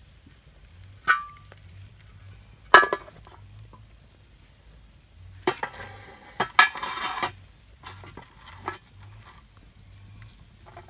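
Knocks and clinks on a metal cooking pot: a clink with a short metallic ring about a second in, a louder knock near three seconds, and a stretch of clattering and scraping around six to seven seconds, followed by a few lighter clicks.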